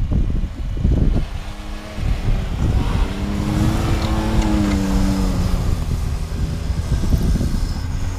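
Car engine working hard under load while climbing a snowy slope, its pitch rising and then falling about three to five seconds in, over a steady rumble and knocking of the car moving over the snow track.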